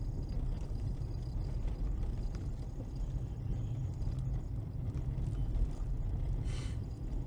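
Steady low rumble of a car driving, heard from inside the cabin, with one brief hiss about six and a half seconds in.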